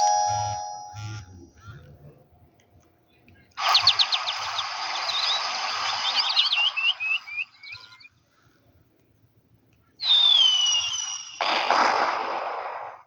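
Ringtones from an au W31K Kyocera phone's speaker: the last notes of a melody fade out, then, after a short pause, a recorded birdsong ringtone plays, with quick chirps over a hiss for about four seconds. After a second pause, another short birdsong clip with a falling whistle follows.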